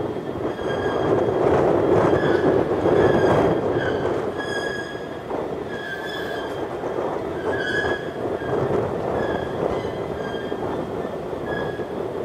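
Union Pacific diesel locomotive moving slowly with a steady rumble, loudest a few seconds in. Over it a ringing tone repeats at an even pace, about four strokes every three seconds, as from the locomotive's bell.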